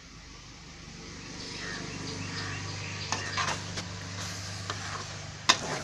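Goat blood fry sizzling in a wide aluminium kadai while a metal ladle stirs it, with sharp clinks and scrapes of the ladle against the pan, the loudest about five and a half seconds in. A steady low hum runs underneath.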